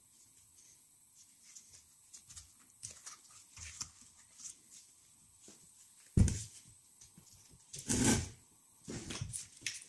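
Handling noise from a BMW E46 front strut assembly (coil spring, top mount, strut tube) on a wooden workbench: light scattered clicks, then a loud thump about six seconds in as the strut is set down on the wood, and a short burst of rubbing noise about eight seconds in.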